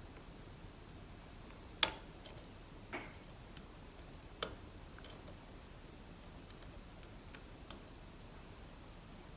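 Small sharp metal clicks and taps at uneven intervals from a lock pick and tension wrench working the pin stack of an Assa Abloy Arrow lock, the sharpest click coming a little under two seconds in.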